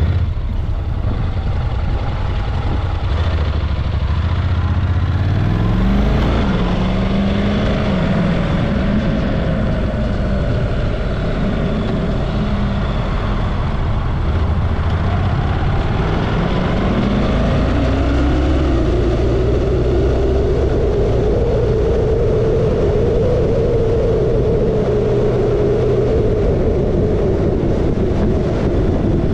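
A Honda parallel-twin motorcycle under way, heard from the rider's seat over a steady rush of wind. The engine note rises about six seconds in, then climbs again more slowly from about sixteen seconds and holds at a higher pitch as the bike accelerates.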